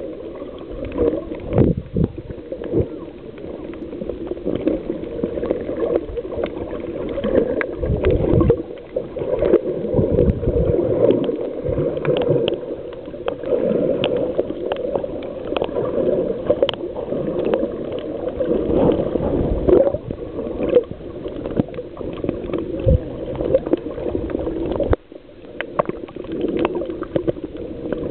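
Water gurgling and bubbling, dull and low-pitched, with scattered clicks and knocks. About 25 seconds in it drops off abruptly, then picks up again.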